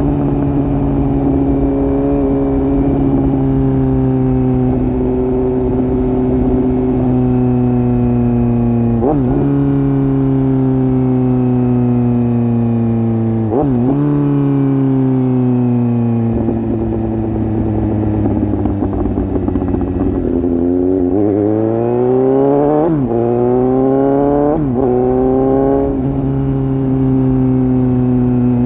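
Suzuki GSX-S750 inline-four motorcycle engine running through an open exhaust with its dB killer removed, heard riding along. The engine note sinks slowly while the bike rolls on, with quick breaks in pitch about 9 and 14 seconds in, drops low around 20 seconds, then rises hard under acceleration with two quick gear changes before settling into a steady cruise.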